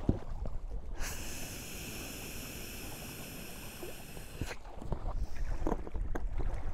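A person blowing one long breath by mouth into the inflation valve of an Alpacka packraft, a steady rushing hiss lasting about three and a half seconds, to top off the last air in the nearly full raft. A few small clicks follow.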